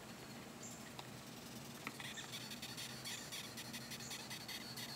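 Female eastern velvet ant (cow killer) stridulating: a faint, rapid, high-pitched squeaking chirr made by rubbing body parts together, starting about two seconds in. It is the insect's warning sound when disturbed.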